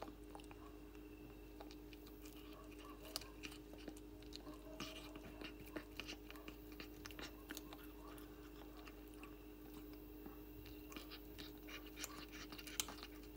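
A cat chewing on a boiled snake: faint, irregular wet clicks of its jaws and teeth over a steady low hum.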